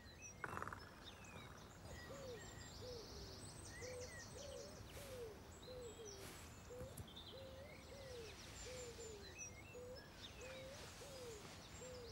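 Faint dusk wildlife ambience: a steady run of short, low rise-and-fall calls, about one or two a second, with light bird chirps and brief insect-like trills above them.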